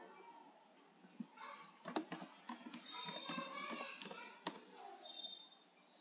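A run of faint taps on a computer keyboard as a word is typed, with one louder click about four and a half seconds in.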